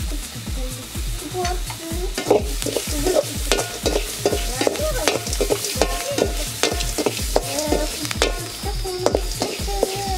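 Onions, green chillies and turmeric sizzling in hot oil in a metal kadai while being stirred, with repeated scrapes and clicks of the stirring tool against the pan. Background music with a steady beat plays underneath.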